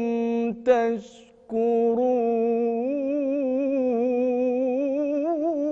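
A man's solo voice reciting the Quran in melodic, drawn-out recitation, singing the closing words 'la'allakum tashkurun' in long held notes with wavering ornaments. A short breath break comes about a second in.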